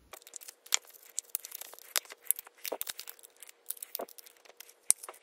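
Alien Gear ShapeShift holster parts being handled and taken apart: scattered light clicks and scrapes of the plastic holster shell and clips, with one sharper click near the end.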